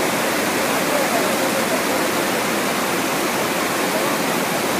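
Steady rush of water from a FlowRider surf simulator, its pumped sheet of water pouring up the ramp.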